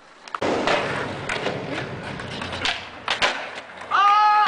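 Skateboard wheels rolling on asphalt, with several knocks and thuds of the board hitting the ground during tricks. Near the end there is a brief high, held tone.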